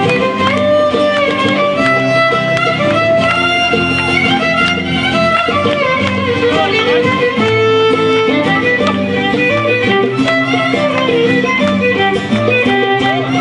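Greek folk dance music for a syrtos: a violin plays the melody over a steady plucked-string accompaniment.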